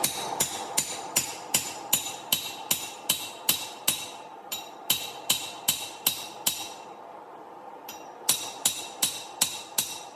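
Hand hammer striking hot steel on an anvil, about three blows a second, each blow ringing. The blows pause for a second or so about two-thirds in, then resume in a shorter run.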